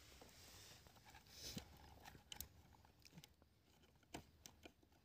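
Near silence with a few faint, scattered clicks and scrapes: a small screwdriver turning a terminal screw to clamp a wire inside a motor starter.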